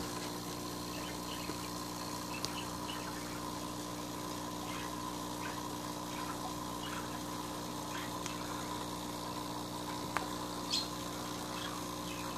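Steady hum of running aquarium equipment with air bubbling up through the tank water, and faint scattered ticks.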